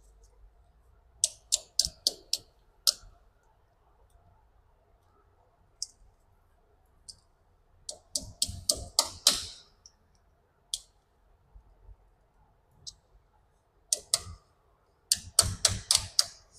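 Steel armour wires of an armoured LT power cable clicking and clinking as they are bent back by hand over a cable gland's cone, in three bursts of sharp clicks.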